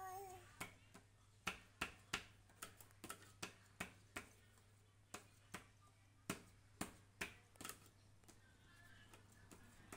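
A pen tapped again and again on paper lying on a wooden tabletop: a run of sharp, irregular taps, roughly two a second, that stops near the end. A brief high child's vocal sound comes right at the start.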